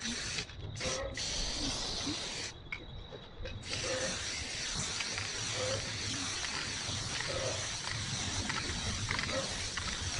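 Aerosol spray paint can hissing as paint is sprayed: short breaks at first, a pause of about a second, then a steady unbroken spray from about three and a half seconds in.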